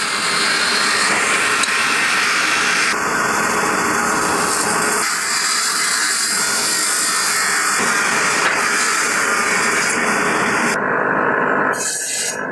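Woodworking machinery cutting or planing timber, a loud steady noise that changes abruptly about three seconds in and again near the end.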